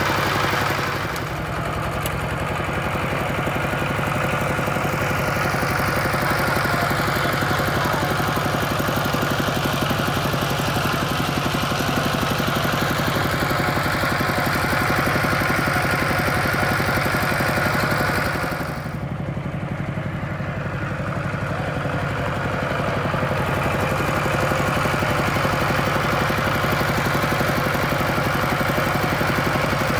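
Two-wheel walking tractor's single-cylinder diesel engine running steadily while pulling a loaded trailer. It eases off briefly about a second in and again a little past the middle, then runs on.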